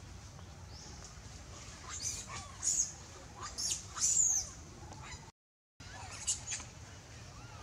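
Baby long-tailed macaque giving short, high-pitched squealing calls, several in quick succession from about two seconds in and another near the end, some sliding down in pitch. The sound cuts out to silence for about half a second in the middle.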